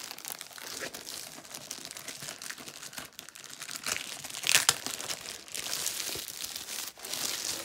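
Plastic wrapping crinkling and rustling as hands handle the diamond painting canvas tube, with a louder crackle about four and a half seconds in.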